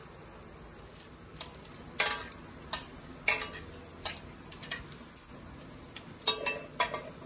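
A steel spatula scraping and clinking against an aluminium kadhai while stirring whole spices in hot mustard oil, in a series of sharp strokes starting about a second in. A faint steady sizzle of the frying oil runs underneath.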